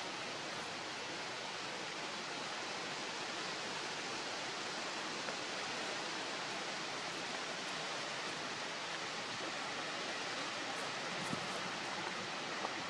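Steady outdoor background hiss with no distinct events, and a couple of faint ticks near the end.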